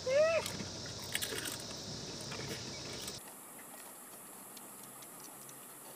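A short voiced cry from one person, then faint clicks and light clinks as a group snacks on crisps and handles steel tumblers. The background drops suddenly about three seconds in, and only faint ticks remain.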